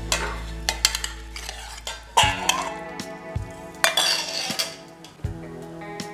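Small whole caplin fish sliding and slapping into a stainless steel mixing bowl as they are tipped out of another bowl, with clatters of the bowls knocking together; the loudest clatters come about two and four seconds in. Soft background music underneath.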